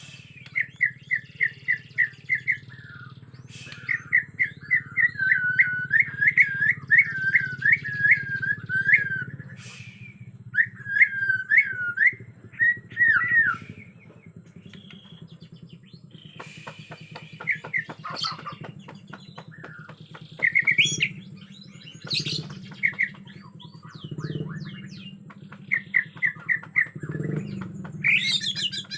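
Bornean murai batu (white-rumped shama) singing in agitated, fired-up bursts: fast strings of repeated chirps and looping whistled phrases with short pauses between them, over a steady low hum.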